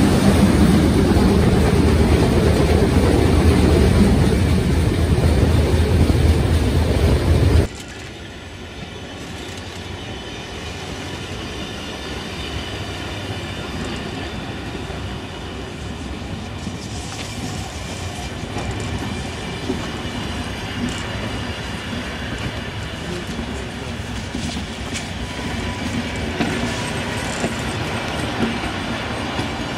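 Steam tank locomotive 78 468 and its train running through a tunnel, a loud, dense, echoing noise that cuts off suddenly about eight seconds in. Then old passenger coaches rolling past, wheels clicking over the rail joints, with a faint wheel squeal near the end.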